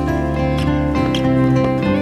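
Background music: a song with plucked acoustic guitar, its notes and chords changing about once a second.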